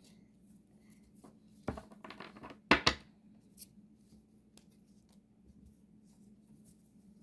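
Pokémon booster pack and trading cards being handled: a brief burst of rustling and crackling about two seconds in, sharpest just before three seconds, then only faint light card handling.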